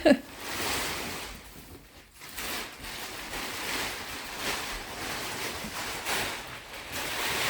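Thick plastic mattress wrapping rustling and crinkling in surges as it is handled and pulled about, with a sharp thump at the very start.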